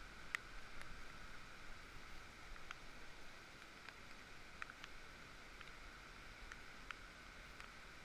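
Faint, steady rainforest background hiss with light clicks and taps scattered through it.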